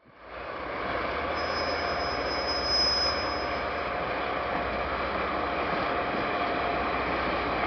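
Diesel locomotive and coupled rail cars moving during shunting: a steady low rumble and running noise, with a thin high wheel squeal from about a second in that stops after a couple of seconds.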